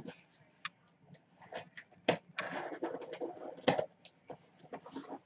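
Cardboard shipping box being slit open with a utility knife: the blade scratching through packing tape and cardboard, with a few sharp clicks and a longer scrape in the middle.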